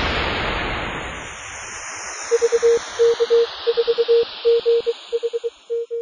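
A whoosh that fades over the first two seconds, then a Morse code beep tone keying out the callsign VK4GHZ in dots and dashes.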